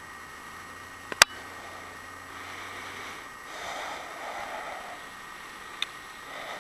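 Faint steady outdoor hiss of wind on the microphone, swelling briefly a little past the middle, broken by a sharp click about a second in and a smaller click near the end.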